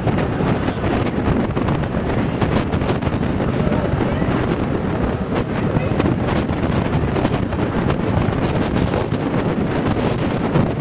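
Strong storm wind blowing across the microphone, a loud steady rush with frequent crackling gusts.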